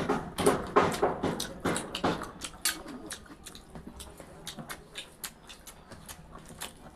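Close-miked chewing and crunching of fried food: a quick run of crisp crunches for about two and a half seconds, then quieter, sparser chewing.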